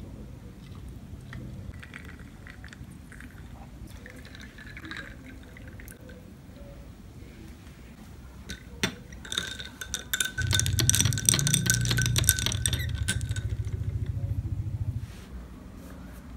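Milk pouring over ice cubes in a drinking glass, then, about nine seconds in, a rapid run of ringing clinks of a metal straw against the glass and the ice for a few seconds, over a low steady hum that stops near the end.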